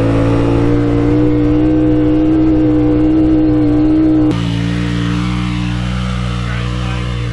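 Side-by-side UTV engine working hard under load at steady high revs while climbing a steep gravel hill, heard from inside the cab. About four seconds in, the sound cuts abruptly to a quieter, more distant engine on the slope.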